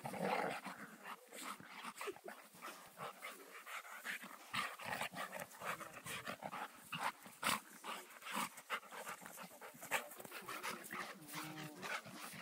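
A Brittany spaniel and a golden retriever play-fighting: dog growls and panting mixed with short, irregular scuffling noises, and a brief whine near the end.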